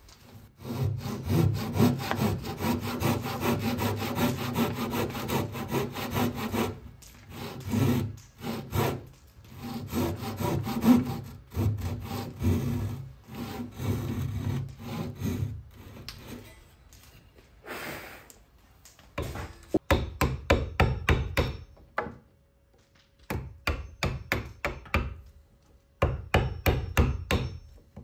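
A thin flush-cut hand saw cutting wood in runs of quick back-and-forth strokes, stopping and starting several times.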